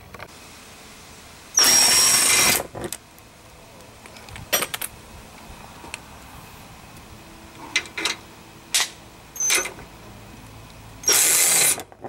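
Cordless power driver with a socket running on the splash-shield bolts under a truck: two runs of about a second each, the first with a high whine, and a few short clicks of metal handling between them.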